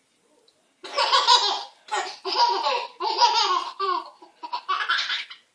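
A small child laughing hard: a run of five or six belly laughs that starts about a second in and goes on nearly to the end.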